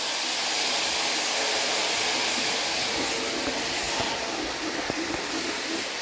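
Roco H0-scale model train running fast on the layout's track: a steady whirring rush of motor and wheels on rail, with a few light clicks in the second half.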